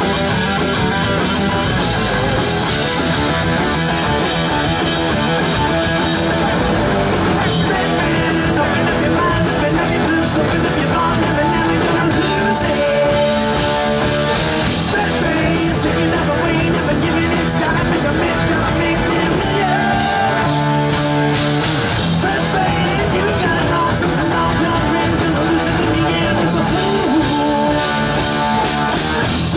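Heavy metal band playing live through amplifiers: distorted electric guitars, bass and a full drum kit, with a sung vocal line coming in at times.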